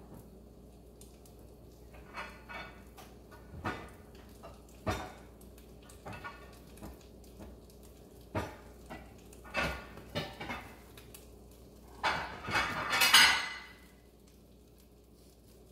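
Dishes clinking and clattering as a plate is fetched: scattered knocks and clinks of crockery in small runs, with the loudest burst of clatter near the end.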